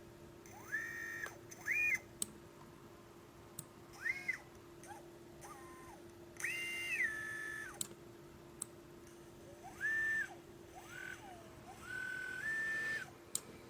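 Readytosky 1804 brushless drone motor spun up in short throttle blips, about seven times: each a high whine that rises to a held pitch, sometimes steps up or down, then falls away. The uploader blames these motors for a bad bearing and heavy vibration.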